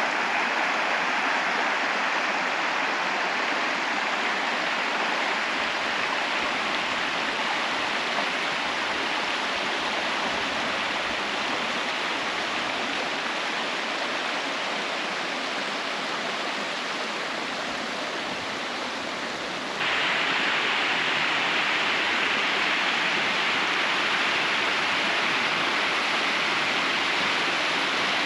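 Steady rushing of flowing water from a stream, an even noise with no clicks or tones, which gets suddenly a little louder about two-thirds of the way through.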